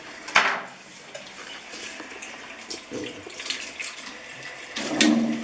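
Tap water running into a kitchen sink while peeled potatoes and knives are rinsed, with a few sharp knocks, the loudest about half a second in and near the end.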